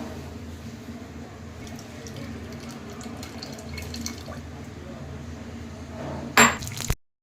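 Kitchen cooking sounds over a steady low hum: light clinks and liquid splashing, then one loud sharp clatter about six seconds in, after which the sound cuts off abruptly.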